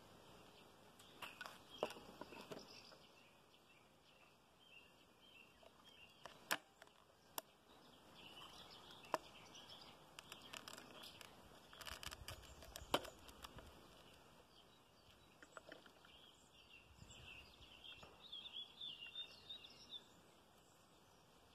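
Quiet plastic clicks and taps from a Stihl AutoCut 46-2 trimmer head's spool and housing being handled and fitted together, with a few sharper clicks. Birds chirp faintly in the background.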